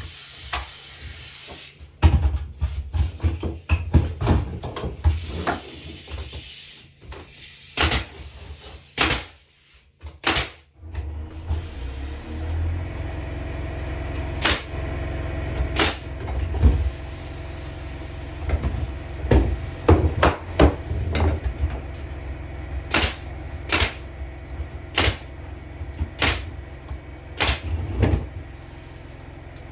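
Irregular wooden knocks and taps of interior woodwork, some sharp and loud, over a low steady hum.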